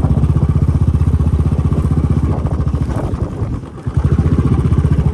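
An engine running steadily with a rapid, even beat, easing off briefly about three and a half seconds in and then picking back up.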